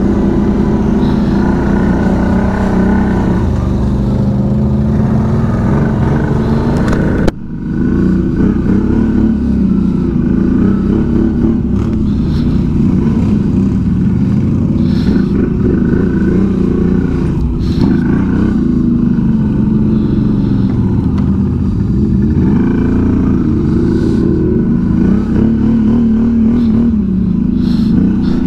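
ATV engine running steadily under way on the trail, its pitch rising and falling a little with the throttle. About seven seconds in the sound breaks off abruptly and resumes, an edit cut in the recording.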